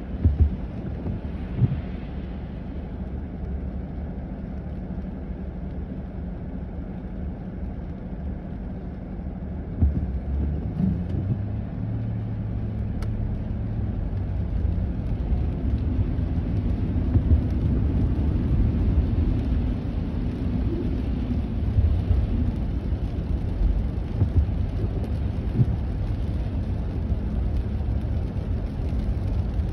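Car engine and road noise heard from inside the cabin: a low rumble while waiting in traffic, growing louder after about ten seconds as the car moves off on a wet, slushy road. A few short thumps come near the start and when it moves off.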